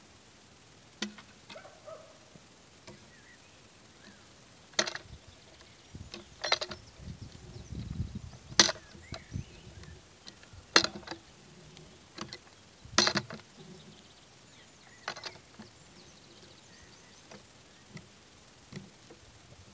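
Cant hook's steel hook biting into an oak log and the log knocking against wood as it is levered and rolled: a series of sharp knocks at irregular intervals, with a low rumble of the log rolling over the ground about seven seconds in.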